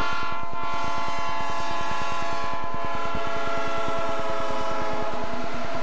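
Southern Pacific freight train passing, its diesel locomotives and then boxcars rolling by, with a steady high-pitched whine of several tones over a fast, even throb.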